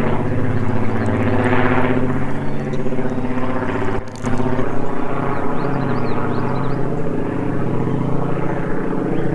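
Steady droning engine hum with a stack of even tones, briefly dropping out about four seconds in.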